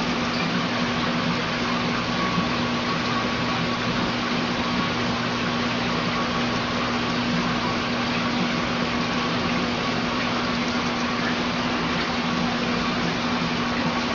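Steady hum and hiss of a running machine, with a low tone held throughout and no change in level.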